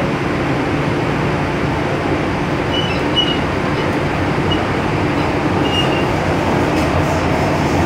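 MTR M-Train metro car running at speed, heard from inside the car: a steady rumble and rush of wheels on rail. A few brief high squeaks come about three and six seconds in, and light clicks near the end.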